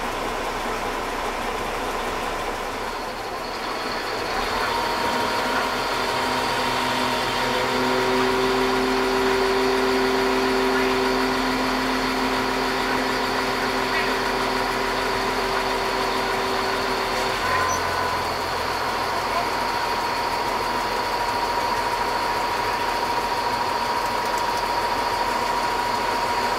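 Caterpillar 972H wheel loader's C11 diesel engine and hydraulics running, heard from inside the cab as the bucket is raised. The sound grows louder about four seconds in, and steady whining tones hold under the engine note for about ten seconds.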